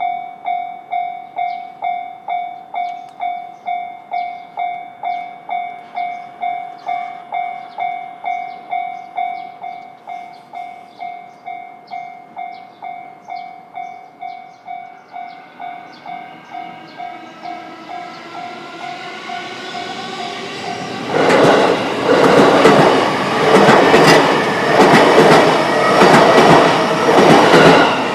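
A Japanese level-crossing warning bell rings in rapid, evenly spaced dings. Then a JR Nanbu Line electric train approaches with a rising whine and passes loudly over the crossing, its wheels clattering over the rail joints.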